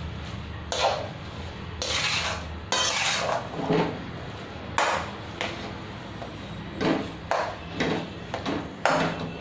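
A spatula scraping and knocking against a metal bowl in irregular strokes as firm, fridge-cold malai (milk cream) is beaten by hand to churn it into butter.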